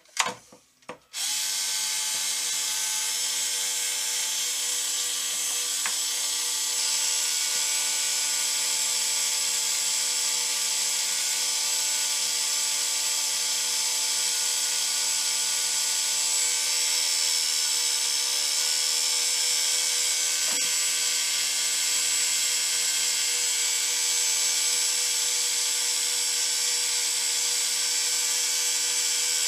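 Handheld electric drill switched on about a second in and running at a steady speed, with a constant motor whine.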